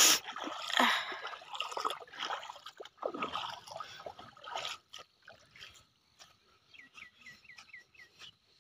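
Footsteps splashing through shallow water and onto wet sand, the splashes loudest in the first few seconds and then dying away. Near the end comes a quick run of about six short, high, falling chirps.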